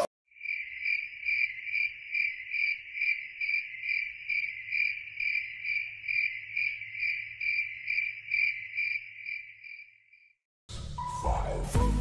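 A cricket chirping in an even, regular rhythm of about three chirps a second at one steady pitch, fading out near the end. Music then starts.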